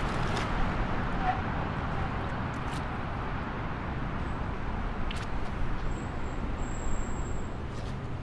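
Steady highway traffic noise, a continuous rumble of passing vehicles with no single vehicle standing out. A few faint clicks, and two brief faint high-pitched tones about five and seven seconds in.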